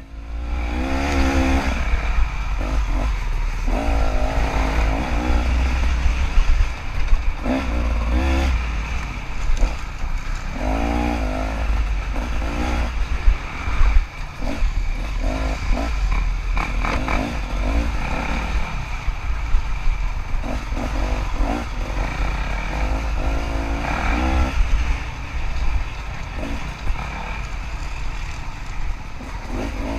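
KTM 300 two-stroke dirt bike engine revving up and down over and over as it is ridden, over a steady low rumble with scattered knocks and rattles.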